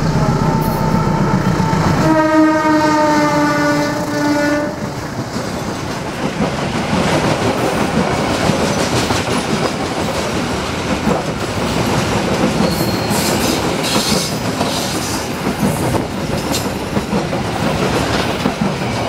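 A diesel-electric locomotive runs toward the listener with its engine humming, then sounds one horn blast of about two and a half seconds: the semboyan 35 warning that a train is passing. The passenger coaches then roll close by with steady clickety-clack of wheels over the rail joints, and brief high wheel squeals on the curve about two-thirds of the way through.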